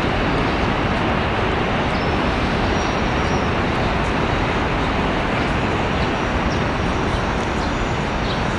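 Steady, even roar of city traffic, with no single vehicle standing out.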